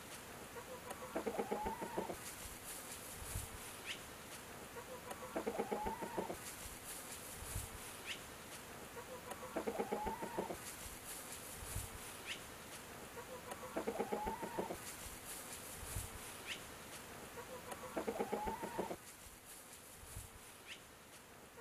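A chicken's short, pulsed, buzzy call, about a second long and rising slightly in pitch, repeated five times at even intervals of about four seconds. A small bird gives a brief high chirp between each call.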